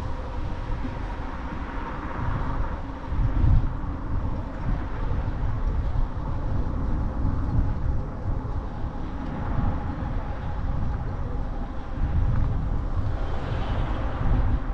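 Riding noise from a Sondors Fold X electric bike underway: wind buffeting the camera microphone and tyre rumble on the road, gusting up and down, with a faint steady whine underneath.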